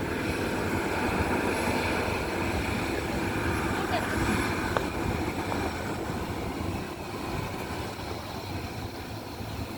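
Lion Air airliner's steady engine and airflow noise during landing, easing off somewhat in the second half.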